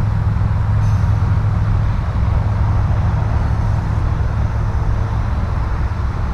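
Steady low rumble of wind buffeting an action camera's microphone.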